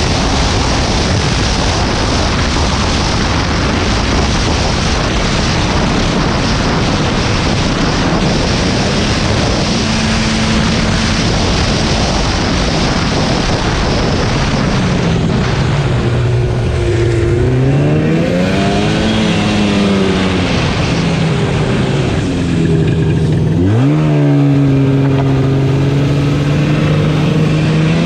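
Snowmobile's two-stroke engine running on the trail under a loud rushing noise. About halfway through the engine note comes forward, rising and falling with the throttle a few times, then climbs sharply and holds a steady high pitch near the end.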